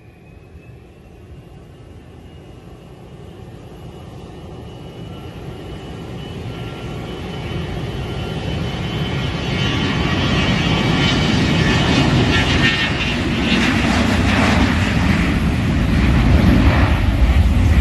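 Twin rear-mounted turbofans of a large business jet on its takeoff roll at takeoff power: a high whine over a rumble, growing steadily louder as the jet rolls closer, the low rumble building most in the last few seconds.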